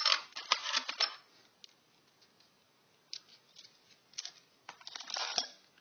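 Loose screws rattling and clinking as they are handled and sorted, dense for about the first second, then a few scattered small clicks and a short burst of rattling near the end.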